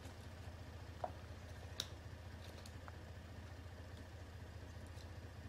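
Quiet, steady low hum of an idling car engine, with two faint sharp clicks about one and two seconds in.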